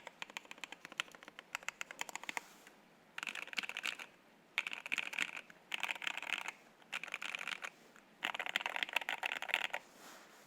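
Mechanical keyboard typing on a gasket-mount 75% board with lubed NK Silk Yellow linear switches, MT3 PBT keycaps and an aluminium plate. Separate keystrokes come first, then several quick bursts of rapid key presses with short pauses between them.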